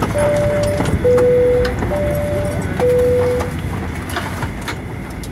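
Steady noise inside a Boeing 737-800 cabin on the apron, with scattered clicks. Four steady electronic tones alternate high and low, each lasting under a second, and end about three and a half seconds in.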